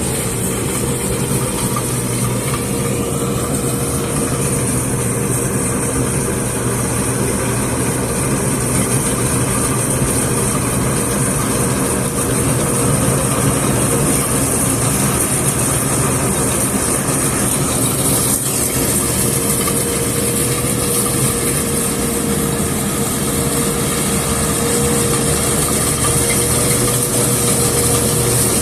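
Combine harvester running steadily under load, its engine and threshing machinery making a constant drone with a steady whine.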